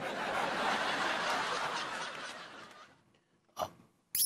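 Sitcom laugh track: a crowd laughing, fading away over about three seconds, with a short burst of sound near the end.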